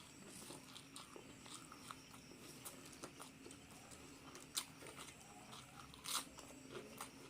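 Close-miked chewing and crunching of crispy fried duck, a run of small crackly clicks with two louder crunches about four and a half and six seconds in. A faint steady hum runs underneath.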